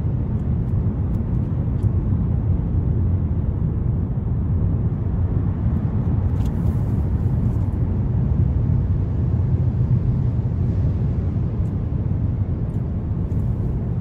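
Steady low rumble of tyre and engine noise, heard from inside a Mercedes-Benz car's cabin as it drives through a road tunnel.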